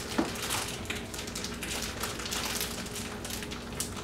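Irregular light scraping and rustling as packed brown sugar is scooped out of its bag into a measuring cup, with a short low sound just after the start.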